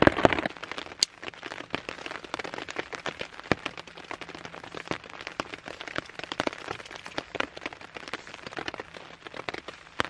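Rain falling, its drops ticking irregularly on a tarp overhead, with a single sharp click about a second in.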